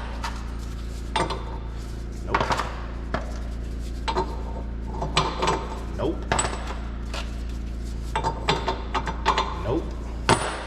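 Large metal sockets from a hub nut socket kit clinking against one another and against the hub nut as they are picked out and tried for size: about a dozen irregular sharp metallic clinks and knocks.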